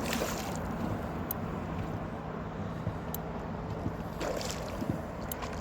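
Water sloshing around a small boat on the lake, with a faint steady low hum and a few faint clicks.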